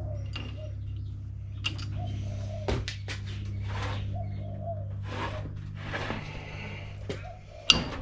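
Sharp metallic clinks and knocks of hand tools and loosened bolts on an EJ20 engine block's case as the case bolts come out, with short scraping rattles in between, over a steady low hum. The loudest clank comes near the end.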